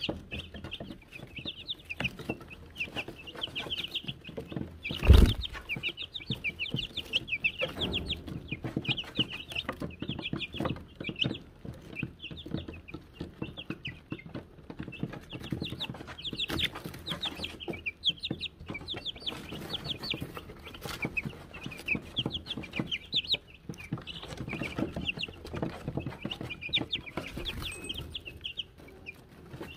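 A brood of Wyandotte chicks peeping constantly, with many short, high chirps over soft scratching and pecking taps in wood shavings. One loud thump about five seconds in.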